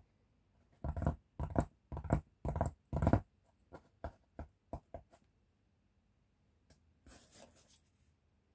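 Fingers tapping and drumming on a padded tabletop: about eight hard taps in the first three seconds, then a few softer ones, and a short rustle near the end.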